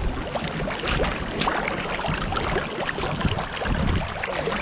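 Squelching and splashing on waterlogged, soggy ground where water is welling up out of the earth, with wind rumbling on the microphone.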